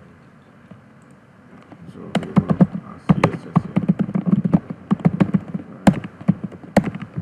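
Typing on a computer keyboard: a rapid run of keystrokes starts about two seconds in, with a couple of sharper clicks near the end.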